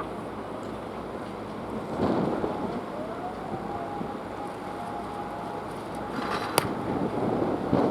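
Wind rumbling on the microphone over an outdoor noise background, with a faint steady tone in the middle and a single sharp crack near the end.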